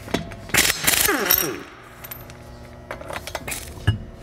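Pneumatic impact wrench spinning lug nuts off a car wheel in loud bursts, then winding down with a falling pitch. Light clinks follow, and a dull knock near the end as the wheel comes off the hub.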